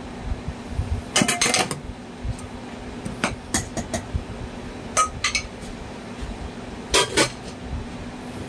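Kitchen clatter: dishes and utensils clinking and knocking in short bursts, a cluster about a second in, then single knocks every second or two. A steady low hum runs underneath.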